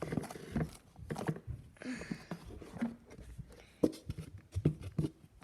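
Thick cornstarch slime being worked, giving an irregular run of soft squelches and sticky clicks.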